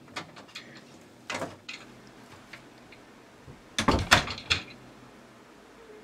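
A door being handled: a few light clicks, a knock, then a louder cluster of knocks and bumps about four seconds in.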